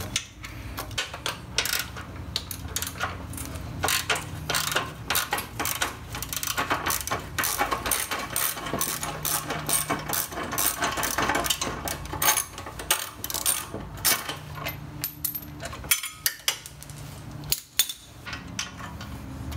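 9/16 socket ratchets clicking in quick runs as the lower front bolt of a motorcycle gas tank is worked loose. The clicking thins out near the end, and a low steady hum runs underneath.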